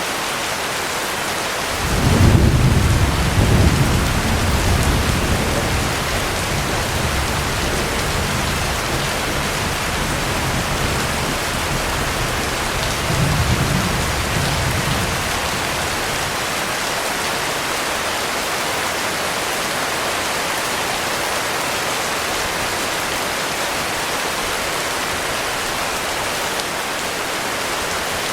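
Heavy rain falling steadily, with a rolling rumble of thunder starting about two seconds in and a second, smaller swell of thunder around the middle.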